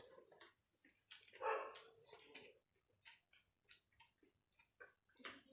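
A dog barks about one and a half seconds in, with a shorter, weaker sound soon after, among soft scattered clicks and taps.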